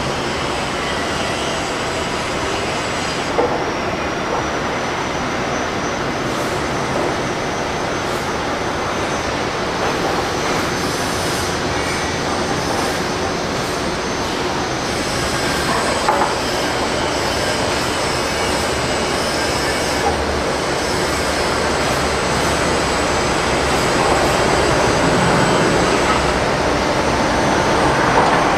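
Steady rumbling running noise of a moving vehicle heard from inside, with a few light knocks and a slight rise in loudness near the end.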